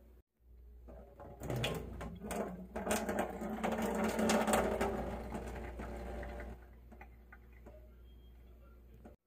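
Water poured from a bowl into a stainless steel sink, splashing and trickling for about five seconds, then stopping.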